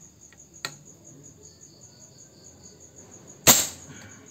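A single suppressed shot from a Reskal PCP air rifle, a sharp crack with a short tail about three and a half seconds in. There is a smaller sharp click about half a second in, and crickets chirp steadily throughout.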